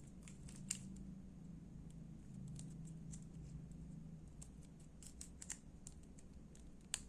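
Scattered light clicks and taps from handling an opened keyboard sustain pedal switch and multimeter probes, over a faint low hum.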